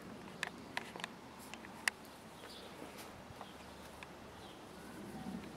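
Quiet outdoor ambience with a few faint, sharp clicks in the first two seconds and faint bird chirps.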